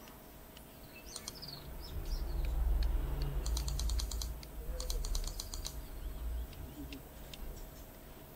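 Outdoor ambience: faint bird chirps about a second in, several short bursts of rapid high-pitched clicking, and a low rumble that swells through the middle and is the loudest sound.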